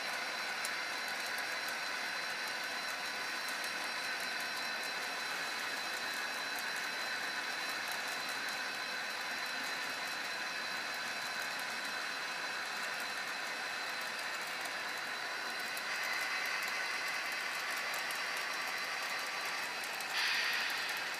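HO scale model freight cars rolling along the track: a steady rolling rattle with fine rapid clicking and a steady high tone. It swells slightly about three-quarters of the way through, and there is a brief louder burst near the end.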